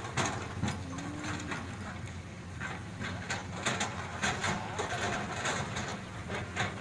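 Crawler excavator's diesel engine running steadily, with frequent sharp clanks and knocks as the bucket works among rocks and soil.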